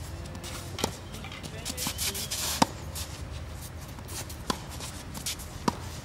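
Tennis rally: four sharp pops of the ball off rackets and court, one to two seconds apart, with shoes scuffing on the court around the second pop.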